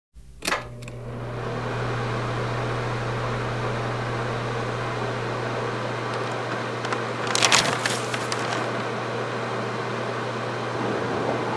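Electric desk fan switched on with a click, its motor humming as the blades spin up to a steady whir. A brief rustle stands out about seven and a half seconds in.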